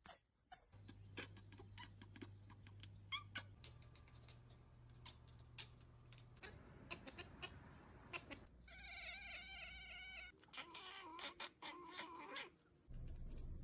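A cat making two drawn-out meows with a wavering pitch in the second half, after several seconds of faint scattered clicks and a low hum.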